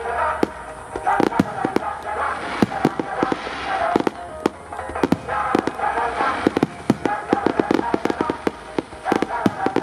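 Fireworks bursting in quick, irregular succession: many sharp bangs and cracks through the whole stretch, over music playing on the public-address system.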